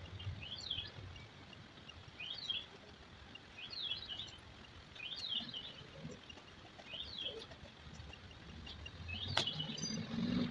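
A bird chirping in short rising-and-falling phrases, repeated about every one to two seconds, over a faint hiss. A sharp click comes about nine seconds in.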